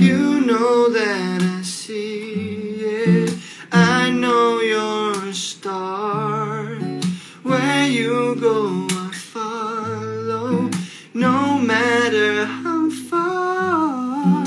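A man singing a slow melody with vibrato while strumming chords on a steel-string acoustic guitar.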